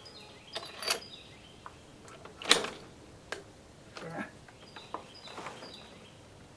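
Scattered metallic clicks and knocks from handling the Carcano rifle and its cartridges while getting ready to fire, the sharpest about two and a half seconds in.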